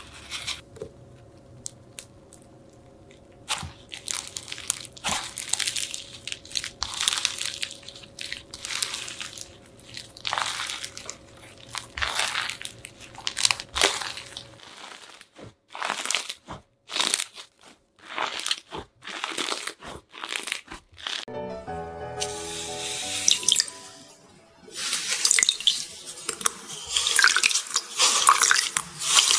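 Foam-bead slime (floam) being squeezed and pressed, giving a run of crisp crunching crackles and snaps. Near the end, continuous wet sloshing and dripping as slime is kneaded in a bowl of water.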